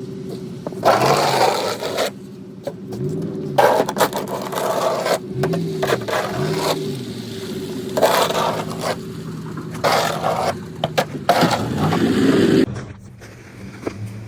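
Snow shovel scraping across pavement in repeated strokes, about one every two seconds, over the steady hum of an engine running. The scraping stops near the end.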